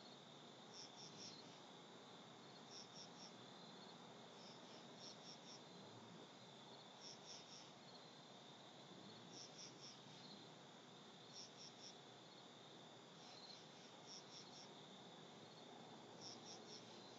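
Faint night insects calling: short groups of three or four high chirps repeating about every two seconds over a steady, faint high drone of other insects.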